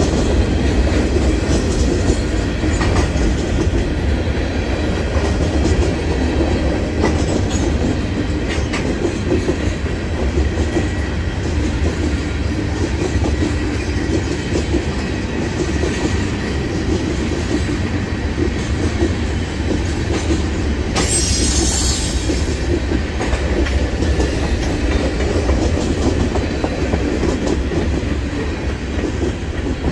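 Freight train of tank cars, covered hoppers and boxcars rolling past: a steady heavy rumble of steel wheels on rail, with the clickety-clack of wheels crossing rail joints. There is a brief hiss about two-thirds of the way through.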